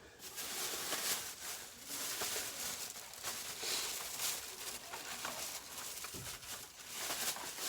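Packaging rustling and crinkling as it is handled, an uneven run of small crackles and rustles without pause.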